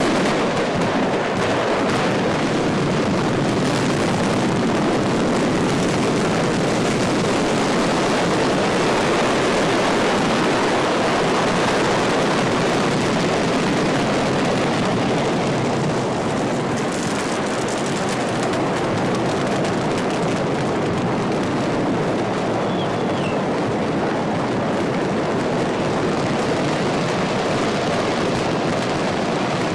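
A mass of fireworks exploding all at once, making a dense, steady roar that barely changes in level.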